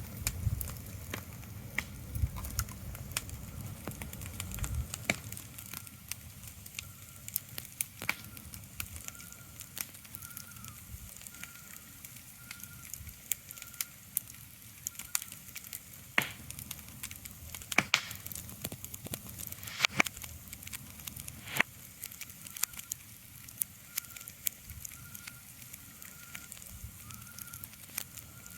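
Fire crackling, with many irregular sharp pops over a soft hiss. A faint high chirp repeats about one and a half times a second for a few seconds at a time in the middle and near the end.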